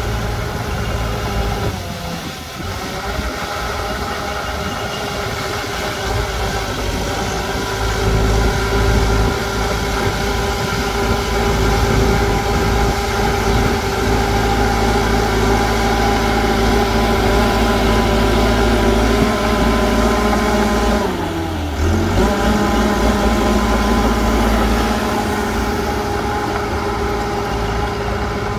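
Heavy earthmoving machine's diesel engine running steadily. Its pitch dips briefly and recovers about two seconds in, and again about two-thirds of the way through.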